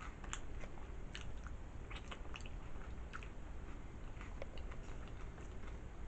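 Close-up chewing of nachos: faint, irregular crunchy clicks from the mouth.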